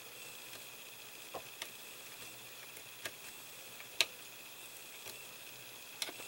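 Small screwdriver turning a self-tapping screw into a plastic model engine part: a few faint, scattered clicks, the sharpest about four seconds in, over a low steady hiss.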